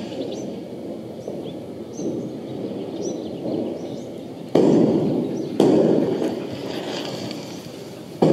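A recording of fireworks played from a phone: a steady crackling rumble of bursts, with three sudden loud booms in the second half, each trailing off.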